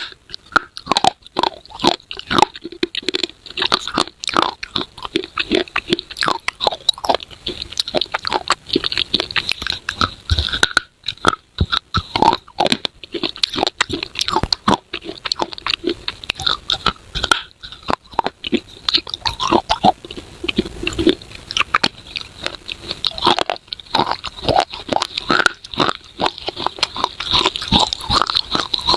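Close-miked biting and chewing of pieces of baked clay pot, a dense run of sharp crunches and crackles with a couple of short pauses.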